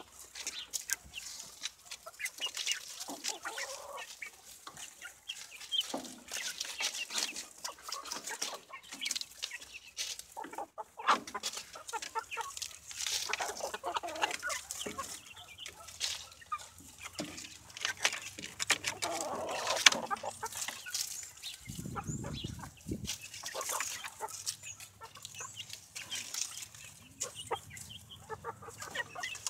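A flock of hens and a rooster clucking close by, with many short clicks and scratches as they peck and scratch at greens. A short low rumble comes about two-thirds of the way through.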